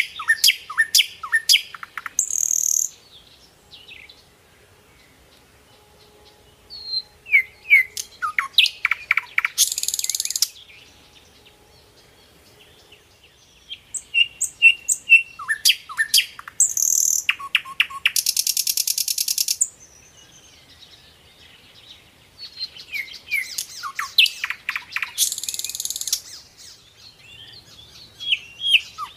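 Small birds chirping in recurring bouts: quick runs of high chirps, each bout ending in a harsh buzzing rattle, coming back about every seven to eight seconds with quiet gaps between.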